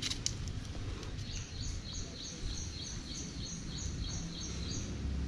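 A bird calling a quick run of about a dozen short high notes, roughly three a second, over steady low outdoor background noise.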